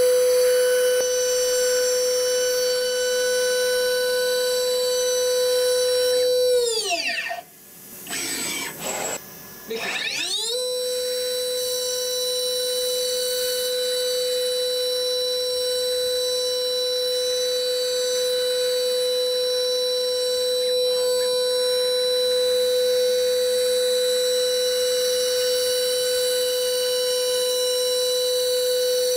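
High-speed spindle of a Datron CNC milling machine whining at a steady high pitch while milling foam. About seven seconds in, the whine falls in pitch and dies away. It is quiet for a few seconds, then rises back up to the same steady whine.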